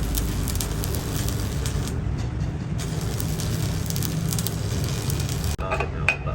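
Electric arc welding on a cracked truck rear axle housing: a steady hiss with many small clicks over a low hum, which stops abruptly near the end. A couple of sharp, ringing metal taps follow.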